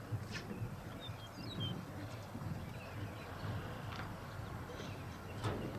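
Outdoor ambience: a few short, high bird chirps over a low, steady background rumble, with a few soft knocks.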